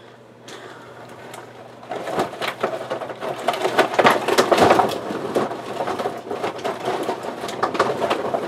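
Trash in an overflowing trash can being crushed down by hand: a dense run of crackles and crunches that starts about two seconds in and is loudest around the middle.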